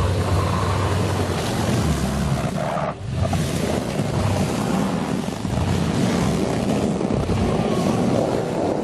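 Lexus LX 470 driving off-road, its engine a low steady drone under heavy wind rumble on the microphone. The sound drops out briefly about three seconds in.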